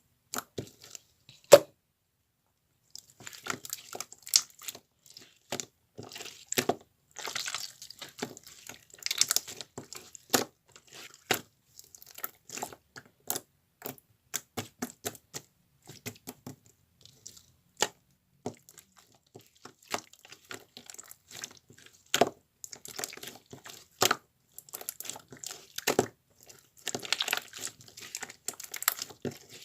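Close-up handling of crinkly material: irregular crumpling and tearing, full of short sharp crackles and clicks, with a brief pause about two seconds in.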